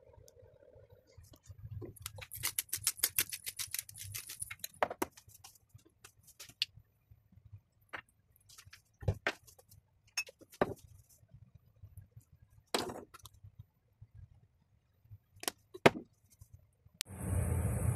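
Rapid clicking of a pepper grinder grinding black pepper for about two seconds, followed by scattered single clicks and light knocks as seasoning bottles and the ceramic bowl are handled. About a second before the end, a louder steady rushing noise starts suddenly.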